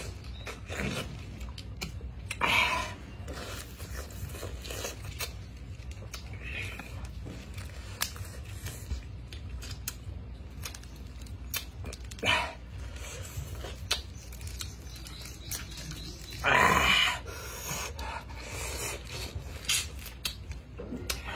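A man biting and chewing raw pineapple with the rind on: crisp crunches, tearing and wet chewing of the tough fibrous skin. A few short loud vocal noises break in, the longest about three-quarters of the way through.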